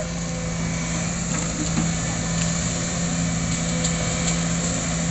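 Sumitomo hydraulic excavator's diesel engine running steadily with an even hum while its raised boom and bucket push against the top of an oil palm trunk.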